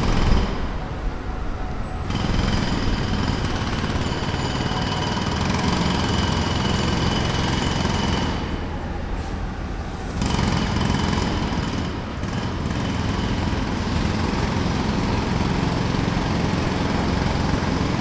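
Jackhammer hammering rapidly and continuously, easing off twice, from about half a second in to two seconds and again from about eight to ten seconds, while a low rumble carries on underneath.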